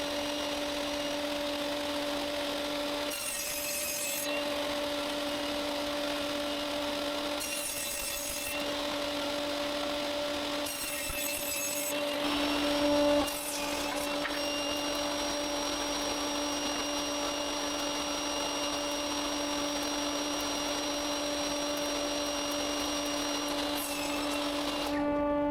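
Table saw running steadily with a constant hum, making about three short rip cuts through spruce boards, each a burst of cutting noise as the motor pitch briefly sags under load, and a louder bump of cutting about halfway through.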